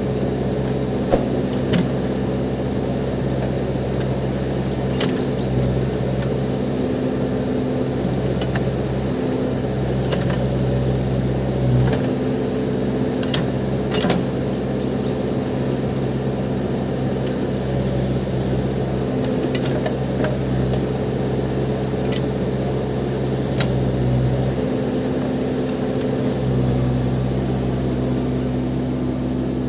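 Case 580 Super M backhoe loader's diesel engine running steadily, its note shifting now and then as the hydraulics take load, with a few short sharp metallic knocks.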